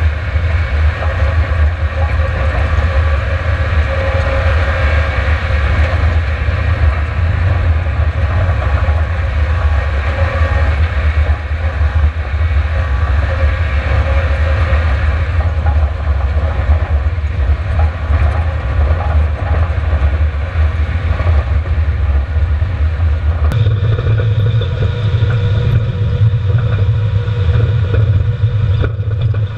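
Subaru Outback at speed on a gravel and dirt track, heard from on board: a steady engine drone under the rumble and rattle of tyres and suspension over the gravel. About 23 seconds in, the low drone steps up in pitch.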